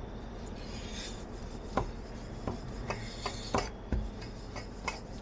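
Rolling pin working on a rolling board to roll out roti dough: a brief rubbing about a second in, then a string of light, irregular knocks.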